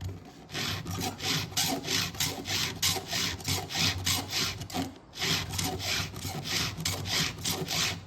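Round chainsaw file in an Oregon file guide rasping across the cutter teeth of a chainsaw chain during hand sharpening, about three even strokes a second. The strokes come in two runs with a brief pause about five seconds in.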